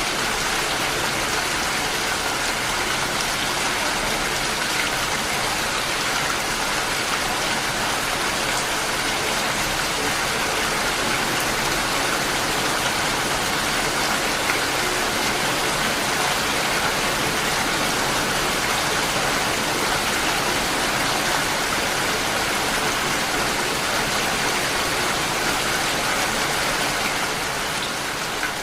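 Steady rainfall, an even hiss of rain falling on surfaces, easing slightly near the end.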